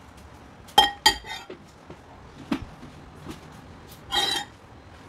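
A metal fork clinking against a glass bowl: two sharp ringing clinks about a second in, a few soft knocks, then a longer ringing clink about four seconds in.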